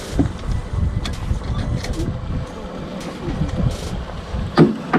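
Wind buffeting the microphone in a low, uneven rumble, with two sharp knocks close together near the end.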